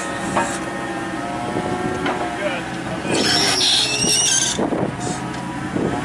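CAT forklift engine running steadily while it handles a heavy pallet load, with a high squealing scrape from about three seconds in lasting over a second.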